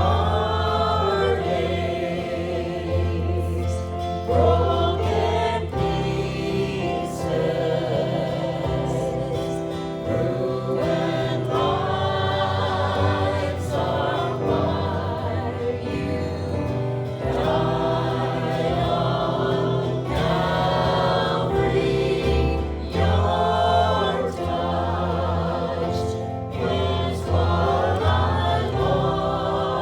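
Gospel worship song: a group of voices singing over instruments with a steady, held bass line.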